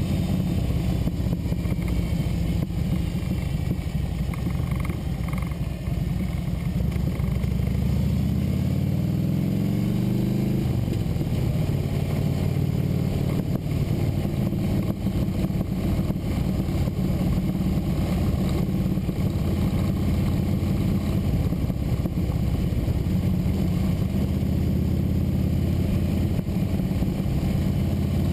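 Motorcycle engine running while riding, with steady wind rush. About eight seconds in, the engine note rises as the bike accelerates, then drops back at a gear change and runs steady again.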